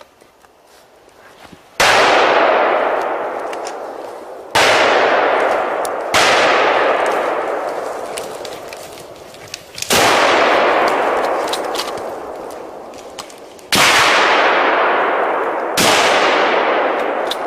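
Six hunting rifle shots at uneven intervals. Each one rings out and fades slowly over a few seconds in a long rolling echo through the forest.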